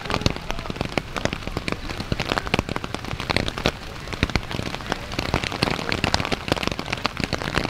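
Rain falling, heard as a dense, irregular spatter of drops striking close to the microphone.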